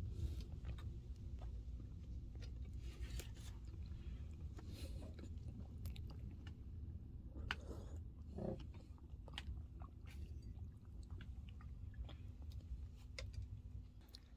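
A person chewing cheese, faint, with small wet clicks and crunches of the jaw over a steady low rumble.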